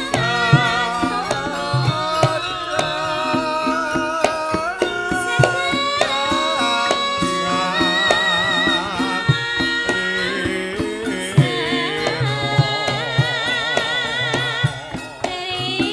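A Javanese sinden (female singer) sings through a microphone, her held notes wavering in a wide vibrato, over live band accompaniment with steady hand-drum strokes.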